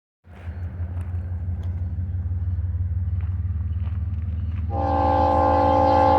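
Diesel locomotives of a BNSF freight train, led by a GE ES44DC, running with a steady low rumble. Near the end the locomotive air horn starts, a steady chord of several notes held past the end.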